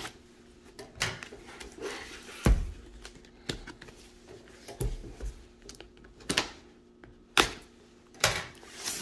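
Cardboard boxes handled on a table: scissors slitting packing tape, then the box turned over and worked about, with cardboard scraping and rustling. There are about nine separate knocks and scrapes, roughly one a second, the loudest a thump about two and a half seconds in, over a faint steady hum.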